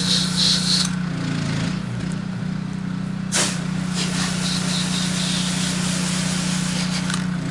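Pressure-washer engine running steadily while the wand sprays house-wash chemical at low pressure. The spray hiss comes and goes, strongest in the first second and again a few seconds later, with one short sharp burst of noise about three seconds in.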